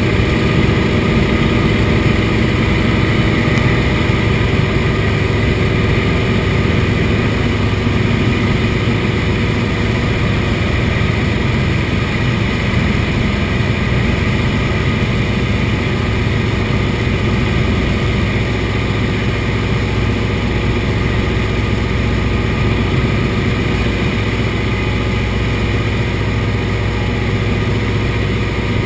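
Antonov An-2's nine-cylinder radial engine and propeller running steadily in flight, a loud, even drone inside the cockpit.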